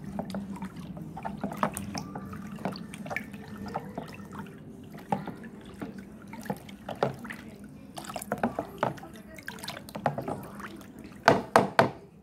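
Wooden spoon stirring soapy water in a plastic tub: sloshing and small splashes, with the spoon clicking against the tub. A few sharp knocks sound near the end.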